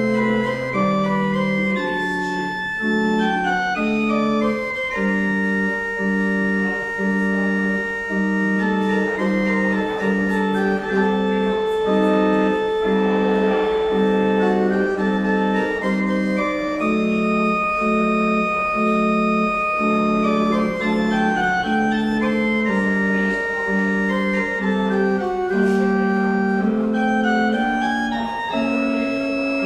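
Church pipe organ playing a closing voluntary: held notes in the upper voices over a lower line of short notes that changes about twice a second.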